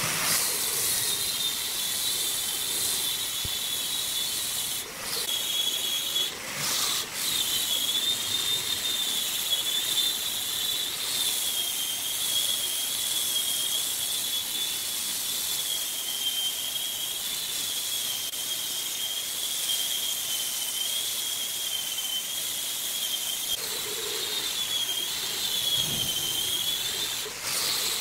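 Angle grinder with a sanding disc running against a large turned wooden piece: a high, steady whine that wavers slightly in pitch, over the hiss of abrasive on wood. It breaks off briefly a few times.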